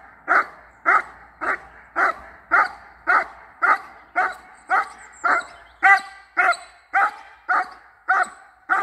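German shepherd-type dog barking steadily at a helper holding still, the hold-and-bark of protection work. The barks are loud, short and evenly spaced, about two a second.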